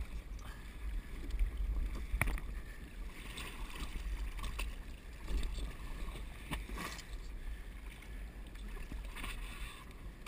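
Lake water sloshing and splashing against a swimmer and an inflatable rubber boat, with a few sharp knocks, over a steady low rumble.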